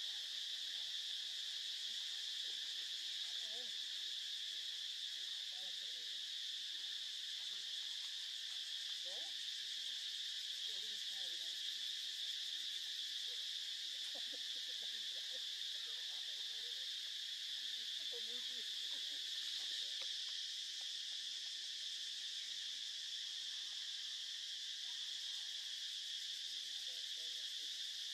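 Insects chirring in a steady, continuous high drone, with faint brief wavering sounds lower down now and then.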